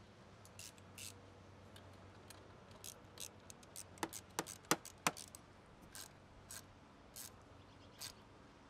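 Scattered, irregular metal clicks and short scrapes as the positive battery terminal clamp is slid onto the post and worked with a hand-held socket. The sharpest, loudest clicks come in a quick cluster about four to five seconds in.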